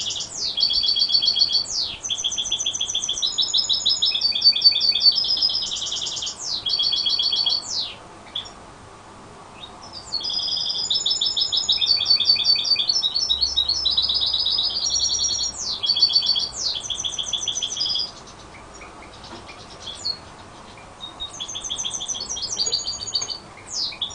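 Young goldfinch × canary hybrid (a "mixto") in full song: long phrases of fast, high trills and twitters, broken by short pauses about eight seconds in and again near eighteen seconds.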